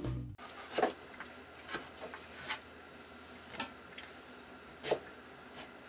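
A kitchen knife cutting squash on a plastic cutting board: about five sharp knocks, irregularly spaced roughly a second apart. A music track ends just as it begins.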